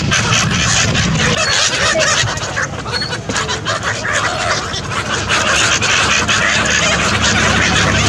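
A flock of gulls calling over one another while their wings flap, over a steady low rumble.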